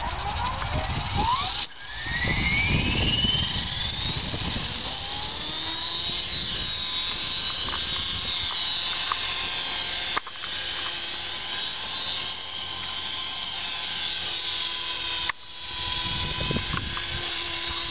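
HK450 PRO electric RC helicopter's brushless motor and rotor spooling up as a rising whine, then running as a steady high-pitched whine. The sound drops out briefly three times.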